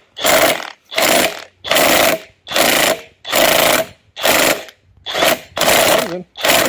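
Impact wrench on a 19 mm socket, fired in about eight short bursts a little under one a second, working the crankshaft of a seized outboard engine to free it.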